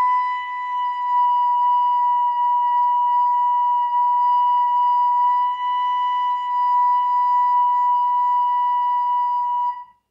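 A recorder playing one long held B note, steady but wavering slightly in pitch, sounded into a tuner to check whether it is in tune; it stops near the end.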